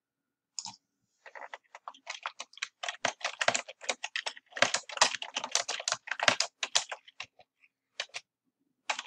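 Typing on a computer keyboard: a quick run of keystrokes starting about a second in, tailing off into a few separate taps near the end.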